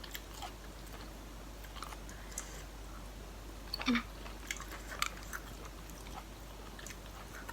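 Close-up chewing of a mouthful of seafood salad, with scattered soft wet clicks and small crunches.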